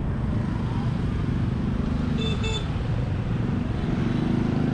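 Street traffic of motorbikes and cars running steadily, with one short vehicle-horn toot about two seconds in.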